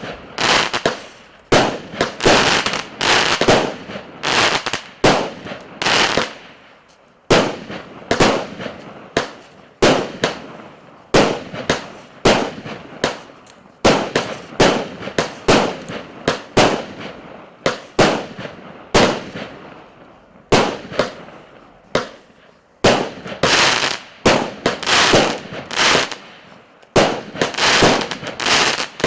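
A 36-shot, 0.8-inch 'Balalaika' firework cake from Russkiy Feierverk (R7290) firing in rapid succession: sharp shots and aerial bursts, often two or three a second, each trailing off in a short crackling decay, with a couple of brief lulls.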